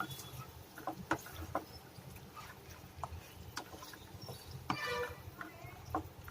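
Irregular crackles and clicks of marinated chicken frying in oil in a heavy pot as a spoon stirs it, with one brief squeak a little under five seconds in.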